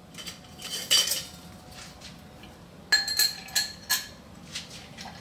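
Metal bar tools and glassware clinking as a cocktail strainer is fished out and fitted to a glass mixing glass: a couple of light knocks about a second in, then a quick run of sharp, ringing clinks about three seconds in.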